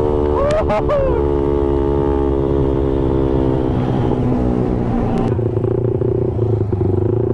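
Motorcycle engine heard from the rider's seat, most likely the Suzuki Satria FU's single-cylinder four-stroke, its note falling slowly as the bike decelerates, with wind rush over it. After about five seconds the wind noise drops away and the engine settles into a lower, steady note as the bike slows right down.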